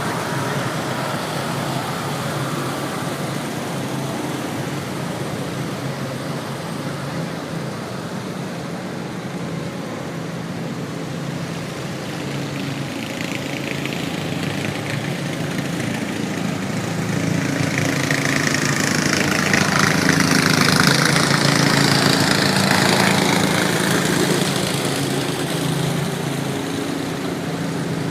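Small engines of riding lawn mowers and other small vehicles running steadily as a procession of them drives by, with one passing close and growing louder about two-thirds of the way through before fading again.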